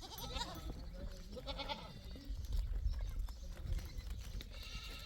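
Goats bleating: two short bleats about a second apart, near the start.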